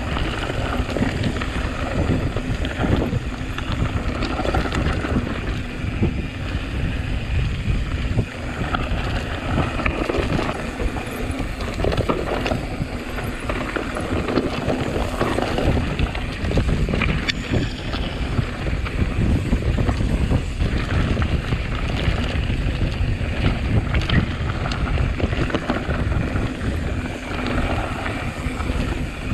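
Mountain bike riding over rough moorland trail: a steady rumble with scattered knocks and rattles from the bike, and wind buffeting the microphone.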